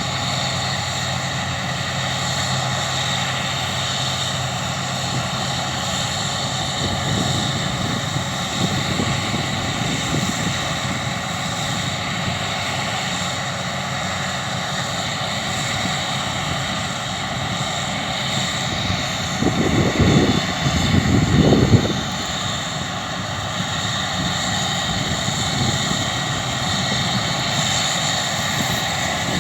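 Massey Ferguson combine harvester running steadily as it cuts, a continuous engine drone. Two loud low rumbles come about twenty seconds in.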